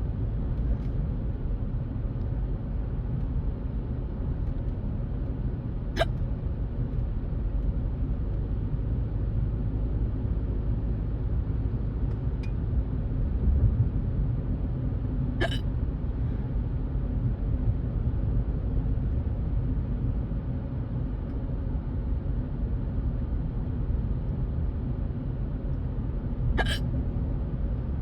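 A person hiccuping three times, each a short sharp hiccup, about ten seconds apart, over the steady low rumble of a car being driven.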